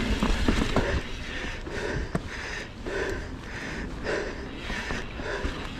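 A mountain biker panting hard while riding, quick even breaths well under a second apart, over a low rumble of wind and tyres on the microphone. A few sharp clicks come in the first second and one about two seconds in.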